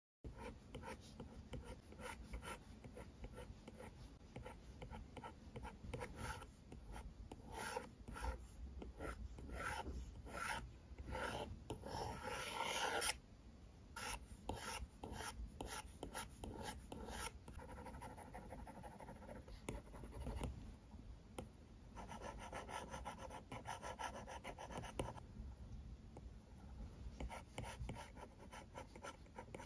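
Stylus tip scratching and tapping on an iPad's glass screen in quick, short drawing strokes. A longer run of scratchy strokes stops abruptly about 13 seconds in.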